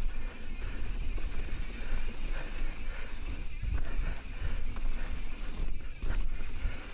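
Mountain bike ridden along a dirt singletrack trail: wind buffeting the camera microphone as a deep rumble over tyre and trail noise, with a couple of sharp knocks from the bike over bumps.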